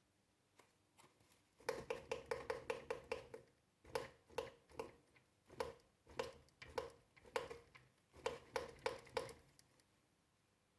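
Manitou Mastodon Comp fatbike suspension fork knocking as it is pumped by hand, each stroke giving a sharp knock with a brief ring. A fast run of knocks comes about two seconds in, then irregular clusters about every half second. This is the knocking and clunking fault the few-months-old fork has developed.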